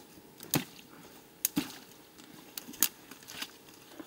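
Irregular wet squelches and sharp clicks in mud, about half a dozen in four seconds, the first the loudest.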